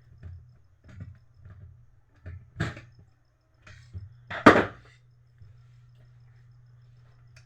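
Printer parts being handled: scattered light clicks and knocks, with two louder clatters about two and a half and four and a half seconds in, over a faint steady low hum.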